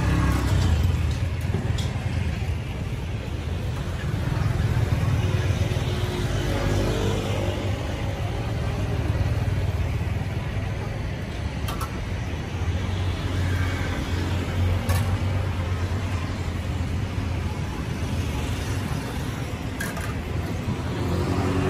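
Street ambience: a steady low rumble of passing traffic, with faint voices and small clicks in the background.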